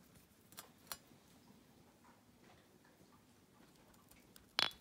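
Quiet handling of an enamel pot as melted sealing wax is poured from it: two soft clicks about half a second and a second in, then a sharp double clink near the end.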